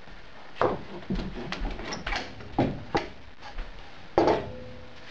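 Pine 2x4 pieces knocked against each other and on a table while a one-handed bar clamp is fitted over a glued half-lap joint: a string of sharp wooden knocks and clicks. The loudest comes a little over four seconds in and rings briefly.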